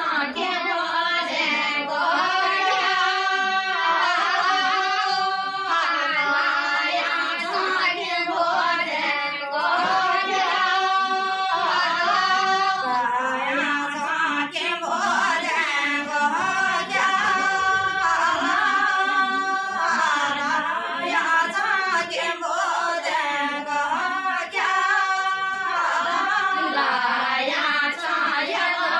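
A group of women singing a Garhwali mangal geet, a traditional wedding song sung at the kanya daan rite, in one continuous strand of held, bending vocal lines.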